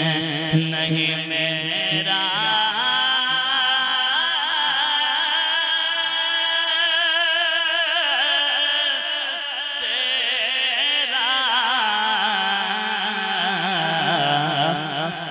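A man singing a naat, an Urdu devotional poem in praise of the Prophet, in long held phrases with a constantly wavering, ornamented pitch.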